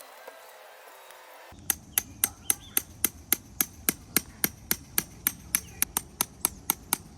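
A hammer striking steadily and quickly, about twenty blows at nearly four a second, starting about a second and a half in and stopping near the end.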